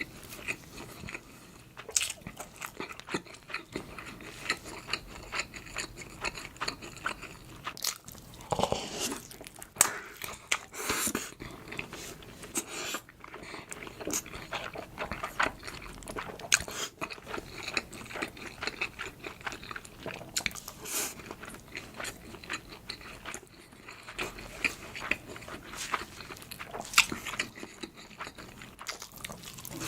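Close-miked mouth eating sounds: steady chewing and biting with many short, sharp wet clicks and smacks, irregularly spaced.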